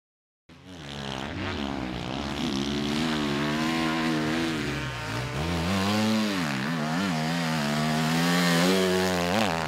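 Enduro motorcycle engine running hard, its pitch rising and falling as the throttle is worked, coming in about half a second in after a moment of silence.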